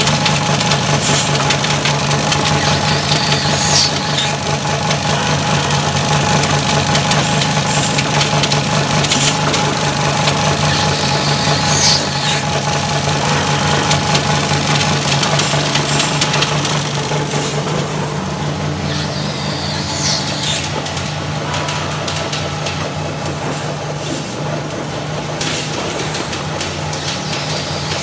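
Sala DFF2V spherical-part machining machine running steadily, a constant low hum and whine. A brief high squeal rises about every eight seconds.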